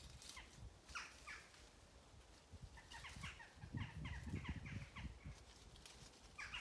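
Bird calls: short, sharp downward chirps, a few single ones and then a quick run of them, with some low thuds underneath partway through.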